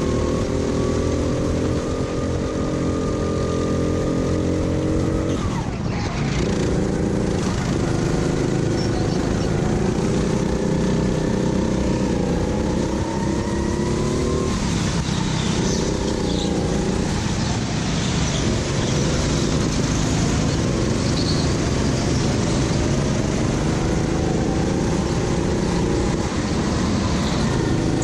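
Go-kart engine running hard under load. Its pitch drops sharply about six seconds in and dips again a few times before climbing back, as the kart slows for corners and accelerates out. A steady rush of noise runs underneath.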